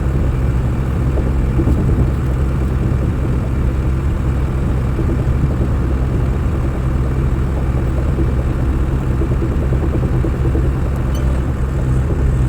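Skid steer's diesel engine running steadily at an even pitch.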